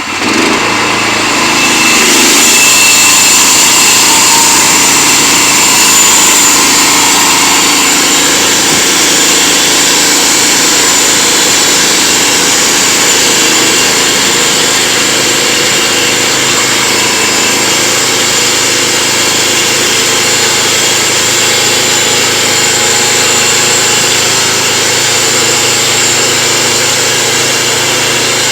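Homemade mobile sawmill's engine speeding up in the first second or two, then running loud and steady.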